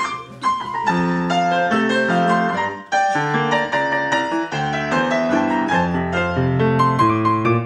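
Grand piano music: a flowing passage of chords and melody notes struck in quick succession, with a brief break about three seconds in.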